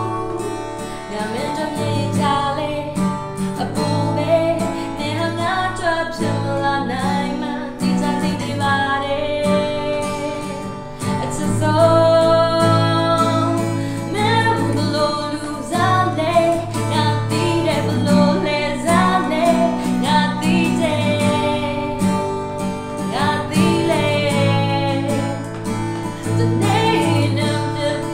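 A woman singing live to an acoustic guitar accompaniment.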